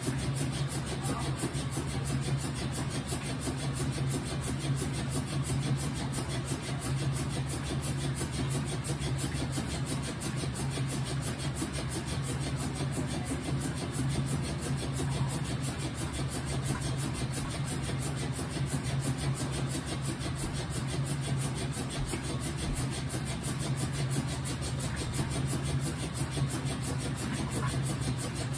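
Whirlpool washing machine running with a steady, constant motor hum.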